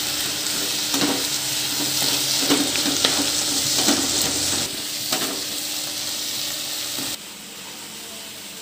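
Bottle gourd halwa sizzling in ghee in a nonstick pan while a spatula stirs it, with several scraping strokes across the pan. The sizzle turns quieter about seven seconds in.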